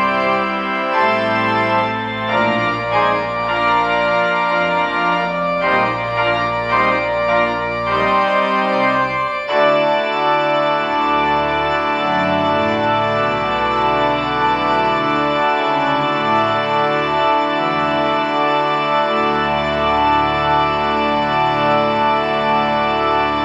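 Church organ playing slow sustained chords, the sound growing fuller about ten seconds in.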